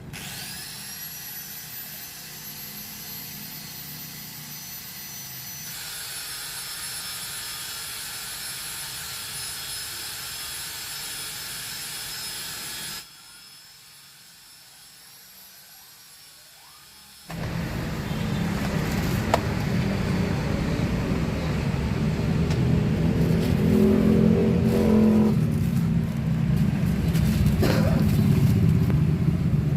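A small motor's high whine spins up and runs steadily, stopping suddenly about 13 seconds in. From about 17 seconds a louder, low-pitched machine sound runs and grows louder toward the end.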